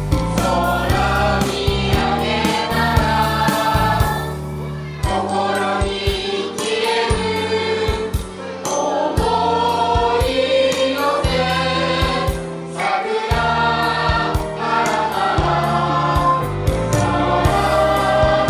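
Mixed choir of men, women and children singing a Japanese song through microphones, over instrumental accompaniment with sustained bass notes and a steady beat. There is a brief break between phrases about four seconds in.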